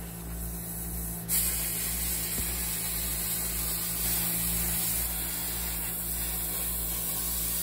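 Handheld plasma cutter cutting steel plate along a straight edge: the steady hiss of the arc and air jet starts suddenly about a second in and holds, over a low steady hum.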